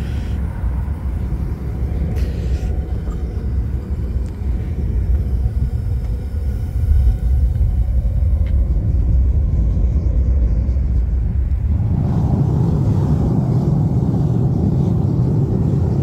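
Homemade propane pipe burners firing into a converted pottery kiln, a steady low rumble. About twelve seconds in the sound grows fuller and a little louder.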